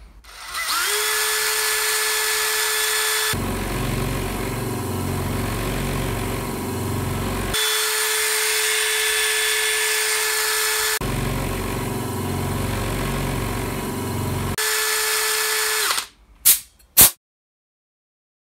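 DeWalt 18 V cordless drill running free on speed 2: a steady whine after a short rising start-up. Twice it gives way for a few seconds to a lower rumbling machine sound. Near the end it winds down, followed by a couple of clicks and then silence.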